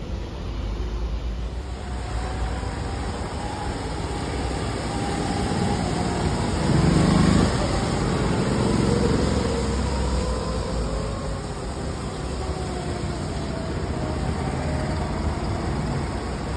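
Go-karts running around a wet track, their engines rising and falling in pitch as they lap. The sound is loudest about seven seconds in, as one kart passes close.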